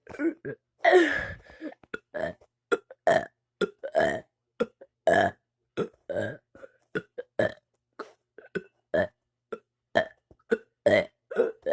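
A person burping over and over, short burps coming about two a second, with a longer drawn-out burp about a second in.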